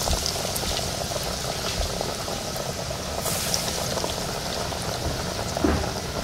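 Battered snapper deep-frying in a pot of hot oil, the oil bubbling steadily with a dense crackle.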